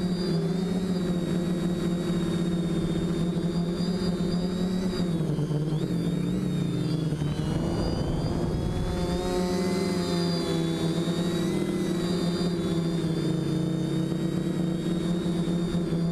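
Quadcopter's electric motors and propellers whining, heard from a camera mounted on the craft, with a high whine above the main hum. The pitch dips and climbs again around the middle as the throttle changes.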